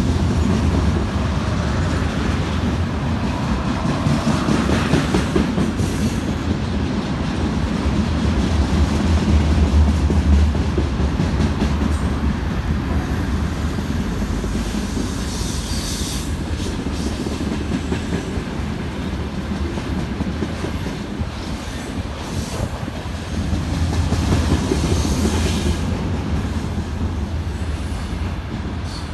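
Freight train wagons rolling past on the rails: a steady low rumble of wheels and wagons that swells louder about a third of the way in and again near the end, with a few brief high-pitched hisses or squeals from the wheels.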